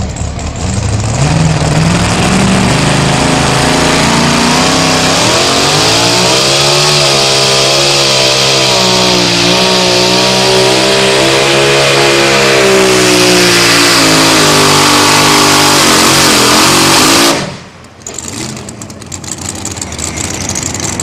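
Two-wheel-drive pulling truck's engine revving up and running at full throttle while pulling the sled, its pitch wavering under load. It is cut off abruptly near the end of the pass, leaving a much quieter engine sound.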